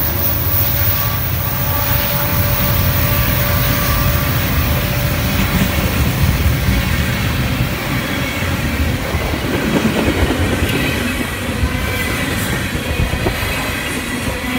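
Freight train passing close by. A diesel locomotive's low engine sound fades in the first seconds, then the steady rumble and clickety-clack of tank car wheels rolling over the rails takes over.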